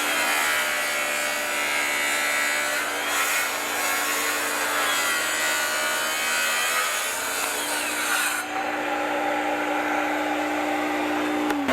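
Makita track saw ripping through thick, dense red mahogany with a steady motor whine and a rasping cut. About three-quarters of the way through the cutting noise thins as the blade clears the wood. Right at the end the motor pitch starts to fall as the saw spins down.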